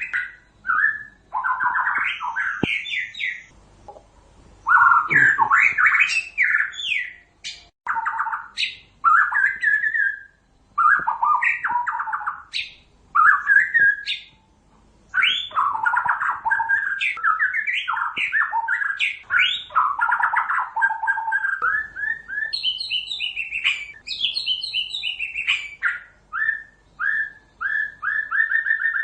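White-rumped shama singing: loud, varied whistled and chattering phrases in bursts with short pauses between them, ending in a quick run of repeated short notes.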